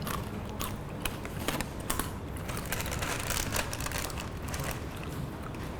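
Light, sharp clicks and crackles at irregular intervals, a few a second, over a low steady hum.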